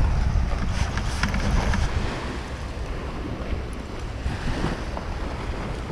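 Wind buffeting the microphone, heaviest in the first couple of seconds and then easing, over the steady wash of small surf on the beach. A few light clicks come about a second in.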